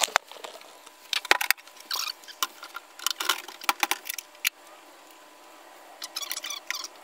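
Clusters of clicks, knocks and light rattles as an aluminium motorcycle top box is set onto a rear rack and its lid and fittings are handled.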